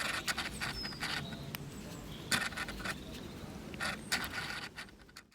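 Handling noises: a string of irregular scrapes and light clicks as objects are moved about, dying away to near silence just before the end.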